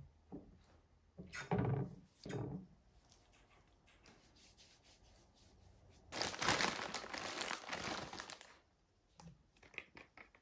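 Two thumps, then about six seconds in a plastic bag of cotton pads crinkling for about two and a half seconds as it is handled and set down on the counter.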